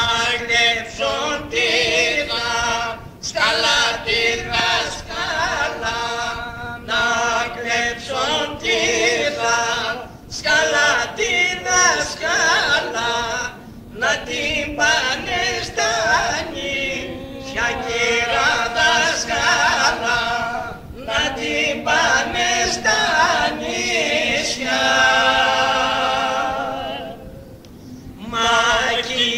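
A small group of men singing a traditional Greek folk song of the Nigrita and Visaltia region, unaccompanied. They sing in phrases with brief pauses between them, and near the end they hold a long, wavering, ornamented note.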